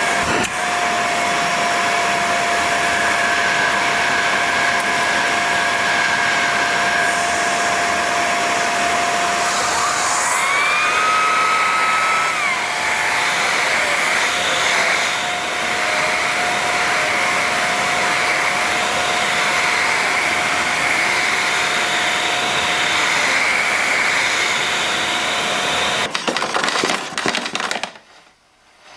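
Bagless canister vacuum cleaner running at full suction, a steady motor whine over rushing air as the dirt is vacuumed up. About ten seconds in, an extra whistle rises in pitch, holds and falls away. The motor is switched off near the end and the sound dies away.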